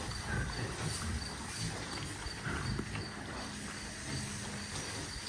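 Low, rough farm-animal noises, with a faint high chirp repeating steadily above them.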